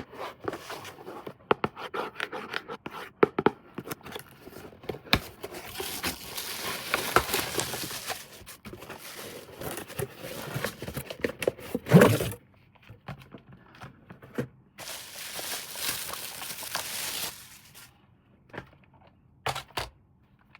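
Toy packaging being handled and opened: a run of clicks and crinkles, two longer noisy stretches of about two seconds each, and a loud thump about twelve seconds in.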